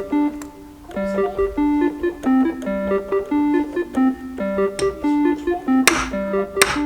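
Background music led by a keyboard playing a repeating pattern of short notes, with two sharp hits near the end.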